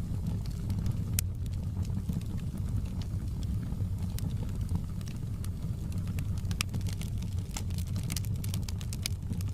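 Wood fire burning in a fireplace: a steady low rumble of flames with frequent sharp crackles and pops, which come thicker in the second half.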